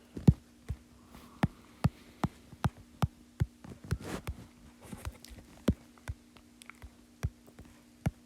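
Fingertips tapping on a tablet's touchscreen, a string of short sharp taps at an uneven pace of roughly two a second, over a faint steady hum.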